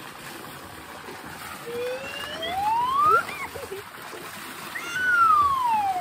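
Steady splashing of a water jet pouring from an overhead pipe into a fish pond. Two long gliding high tones stand out above it, louder than the water: one rising about two seconds in, one falling near the end.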